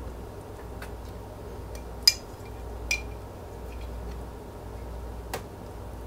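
A spoon clinking against a bowl and a plastic container as chilled oatmeal is scooped out: four separate clinks, the loudest about two seconds in, a couple with a short ring.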